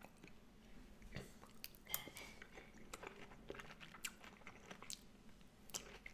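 Faint close-up chewing: soft mouth clicks and small crunches scattered throughout, a few sharper ones standing out.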